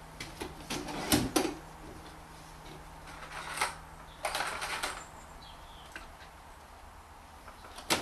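A couple of sharp knocks and clicks just over a second in, then short rustling scrapes a few seconds later, like small parts and tools being handled, over a low steady hum.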